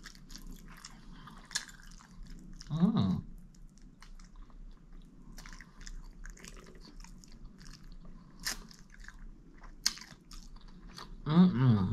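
A person biting and chewing chicken wingettes close to the microphone: wet mouth clicks and crackles, with a brief vocal sound about three seconds in and another near the end.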